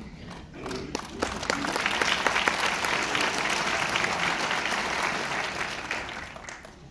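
Audience applauding: clapping that builds up over the first second or two, holds strongly, then dies away near the end.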